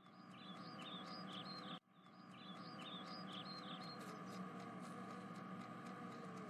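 Faint bird chirping: a run of quick, high chirps, a brief cut-out about two seconds in, then another run of chirps, over a steady low background hiss.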